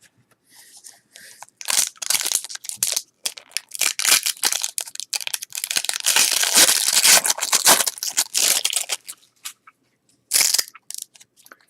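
Crunching and crackling as stuck-together cards from a 1992-93 Fleer Ultra basketball pack are peeled apart. It comes in quick crackly runs, loudest about two-thirds of the way through, with one more short burst near the end.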